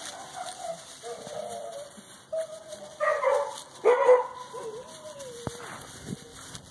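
Puppy whining in high, wavering whimpers, with two louder yelps about three and four seconds in.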